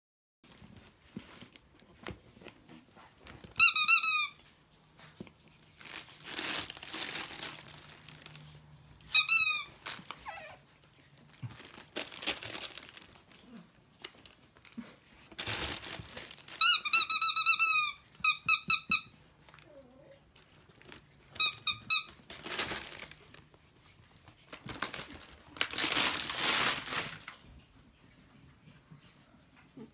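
Rubber squeaky toy squeaking in short bursts as a pug puppy plays with it: single squeaks and quick runs of several, loud and high-pitched. Stretches of rustling and crinkling fall between them.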